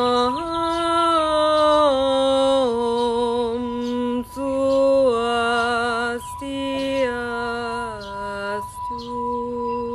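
A woman chanting a mantra in slow, held, stepping notes, in three phrases with short breaks between them. Under it is the steady ring of a metal singing bowl being rubbed around its rim with a wooden stick.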